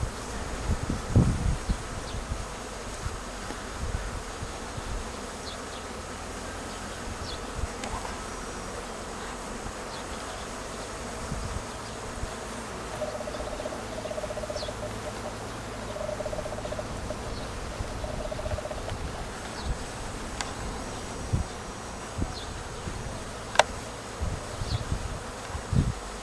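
Bees buzzing among blossoming fruit trees, a steady hum with a louder humming passing close for several seconds in the middle. Scattered low thumps on the microphone, and a few faint short high chirps.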